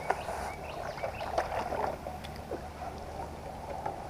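Water splashing and small knocks on a kayak over a steady low rumble, busiest in the first two seconds, with a few short high chirps.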